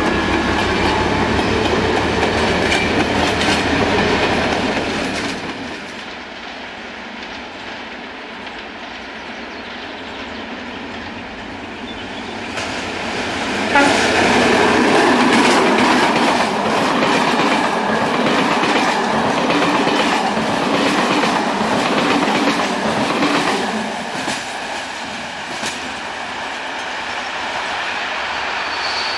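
Passenger train coaches rolling past, their wheels clacking rhythmically over the rail joints. About 14 seconds in, a locomotive-hauled train passes close by, loud and sudden, then the noise eases as the train draws away.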